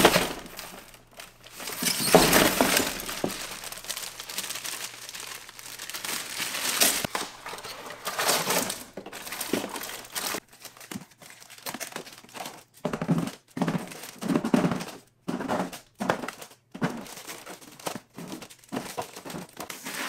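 Plastic packaging crinkling and items being set into a plastic cooler, in irregular bursts of rustling with short pauses: shrink-wrapped bottled water, a cardboard box, then bags of ice.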